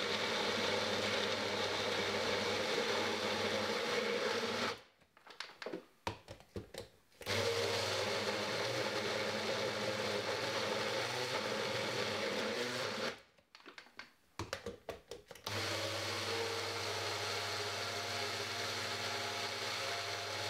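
Magic Bullet personal blender motor running steadily as it purées chopped green plantain with a little water. It stops twice, about five seconds in and again about thirteen seconds in, each time for a couple of seconds before running again.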